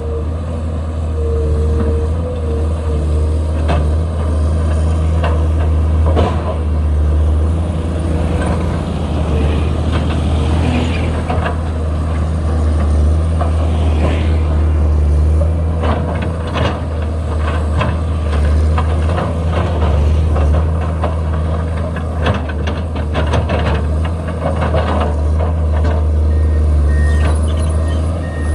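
Heavy diesel engine of a Komatsu PC210LC excavator running steadily under load, with repeated clanks and scrapes as it works. Near the end a reversing alarm starts beeping.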